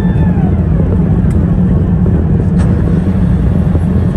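Airbus A380 cabin noise heard from a window seat over the wing in flight: a steady, loud low rumble of airflow and engines. A high whine falls in pitch and fades away in the first half second.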